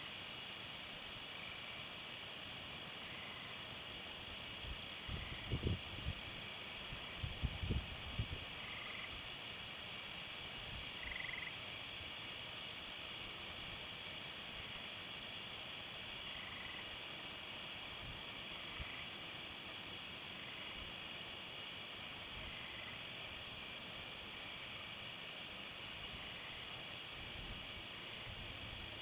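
Steady night chorus of crickets and other insects, shrill and continuous, with a few short chirps now and then. A handful of low thumps come about six to eight seconds in.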